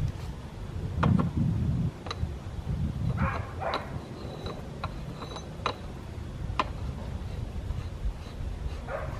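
Scattered light metallic clicks and knocks as a gloved hand works the pipe fitting on a brass sight-feed steam lubricator, over a low rumble.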